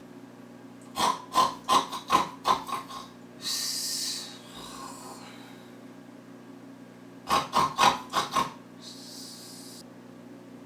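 A person snoring twice. Each time a run of short, choppy snorts, about three a second, is followed by a hissing breath out.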